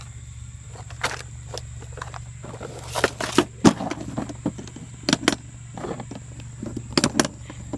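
Irregular clicks, knocks and small clatters of fishing tackle being handled and rummaged through, with a steady low hum underneath.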